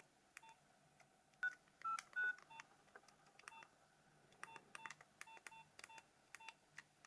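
Faint keypad beeps from a Nokia 2600 as its buttons are pressed to move through the menus: short single beeps, three higher-pitched ones close together near the start, then a quick run of about a dozen in the second half.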